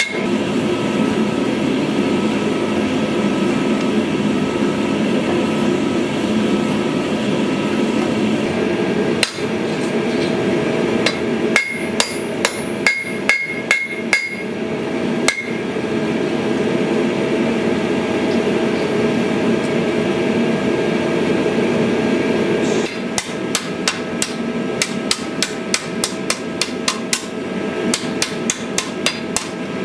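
Hand hammer striking a red-hot steel sword blade on an anvil in two runs of quick blows, the later run faster at about four blows a second. A gas forge's steady roar runs underneath.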